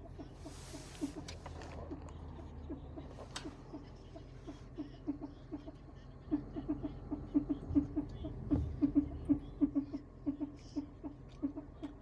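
Repeated short chirping ticks from a second-generation Toyota Prius, the weird noise the car is making, over a low steady hum. The ticks come about two or three a second, then quicken to about four a second and get louder about halfway through.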